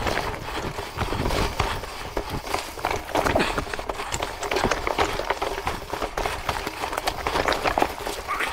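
Electric mountain bike rattling over a rough track: a dense run of irregular knocks and clatters from the tyres and frame.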